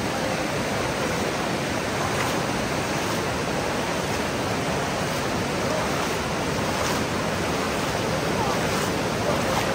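Shallow, fast mountain river rushing steadily over a stony bed, churned by people wading through it.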